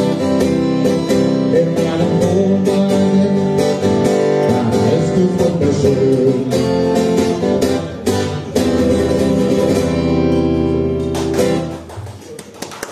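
Acoustic guitar strummed through the closing bars of a live song. The playing stops about eleven seconds in and the sound falls away sharply.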